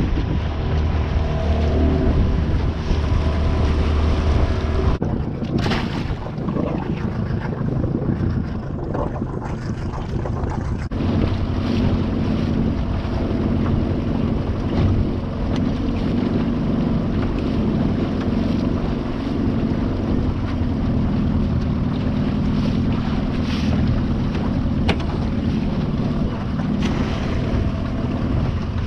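Strong wind buffeting the microphone on a small open boat, over water slapping and a steady low hum. The sound changes abruptly about five and eleven seconds in.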